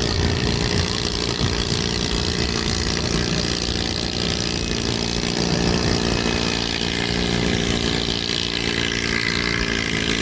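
Tractor engine running at steady revs, with a rough, noisy edge over its low hum.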